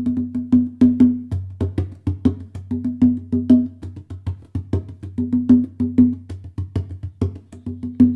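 Rope-tuned, skin-headed hand drum played with bare hands in a steady rhythm: sharp slaps mixed with fuller ringing tones, with quick clusters of repeated strokes every couple of seconds, over a steady low tone.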